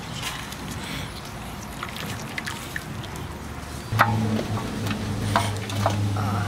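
Water dripping and trickling from a wet mesh bag into an aluminium basin, with small clicks and splashes. About four seconds in, a steady low hum starts and the sound grows louder.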